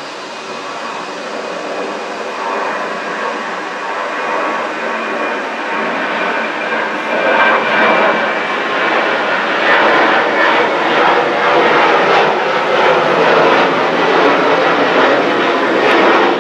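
Jet engines of a Ryanair Boeing 737-800 climbing out after takeoff, growing steadily louder as it comes overhead. The sound turns rougher and more fluttering about halfway through.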